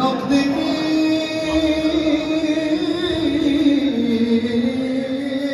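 A man singing a mawwal solo into a handheld microphone: long held, ornamented notes that start at once and step down to a lower pitch about four seconds in.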